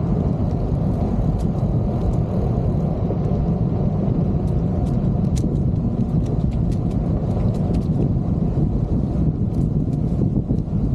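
Wind rushing over the microphone of a camera riding on a moving bicycle: a steady low rush, with scattered faint light ticks through the middle.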